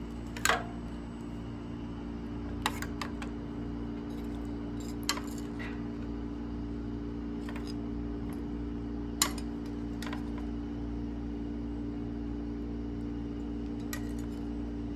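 A steady motor hum with a few short, sharp clicks scattered through it.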